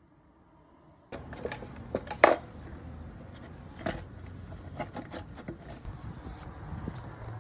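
Clinks, knocks and rubbing of tools and parts being handled during an intake boot repair, with one sharp metallic clank about two seconds in, over a low steady hum.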